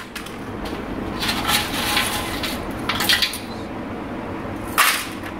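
Clinking and rattling of metal parts and hard calcium scale being handled inside an opened electric water heater, with a few sharper knocks. The element is heavily caked with calcium, which is why the heater no longer heats properly.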